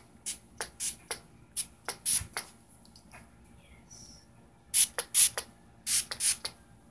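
Pump spray bottle sprayed repeatedly: a string of short, sharp hissing sprays, with a louder cluster of sprays near the end.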